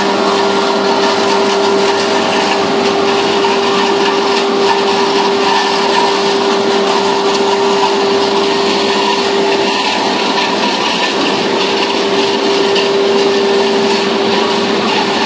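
KFQ paper slitter-rewinder running, cutting paperboard into narrow rolls as they wind. A loud, steady whirring with a constant hum from its motors and suction blower.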